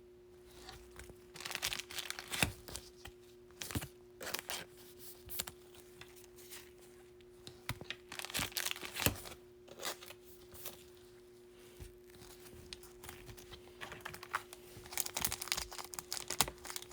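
Soft, irregular crinkling and rustling of plastic card sleeves and pack wrappers as trading cards are handled and sleeved, busier near the end, over a faint steady hum.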